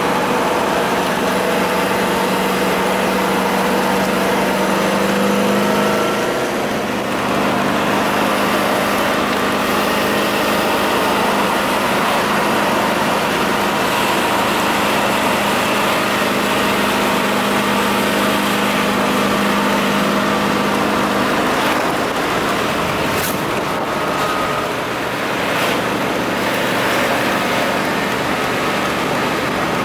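1969 Chevrolet Corvette's V8 running steadily while the car is driven, heard from inside the car with road and wind noise. The engine drone dips and changes about seven seconds in, and again around twenty-two seconds in.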